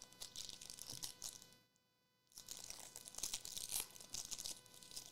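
Faint rustling and crinkling as football trading cards and their pack wrappers are handled and shuffled. It comes in two stretches, with a short dead-silent gap about a second and a half in.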